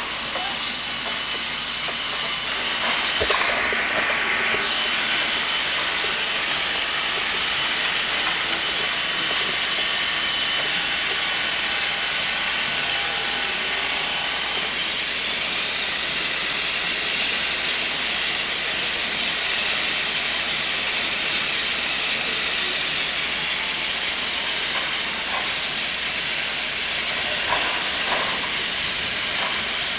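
Steady hissing of steam around Sierra Railway No. 28, a live steam locomotive standing on an air-powered turntable, with a few faint knocks near the end.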